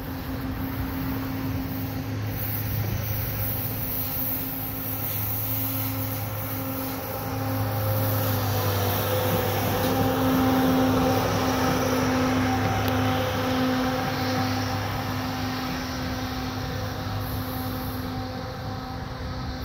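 Diesel engine of a yellow railway track-maintenance machine running steadily as it rolls past on the rails. It grows louder to a peak about halfway through, then fades as the machine moves away.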